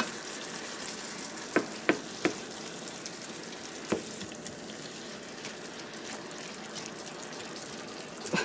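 Ground beef and garlic sizzling in a frying pan, a steady hiss. Three sharp knocks come in quick succession about one and a half seconds in, and one more about four seconds in.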